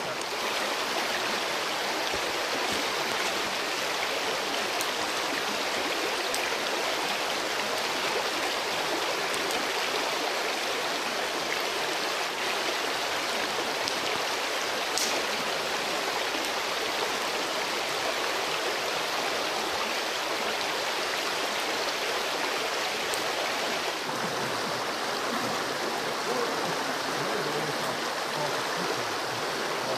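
A shallow rocky creek running over stones in a steady, rushing flow.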